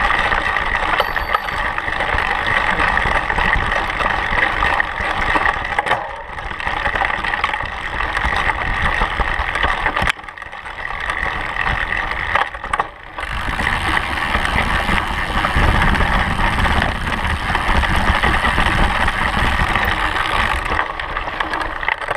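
Mountain bike riding along a dirt trail: knobby tyres rolling and the bike rattling over the rough ground, a steady loud noise that eases briefly a few times.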